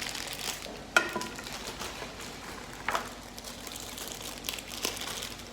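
Plastic packaging rustling as parts of a boxed video-making kit are handled, with a sharp knock about a second in and another about three seconds in.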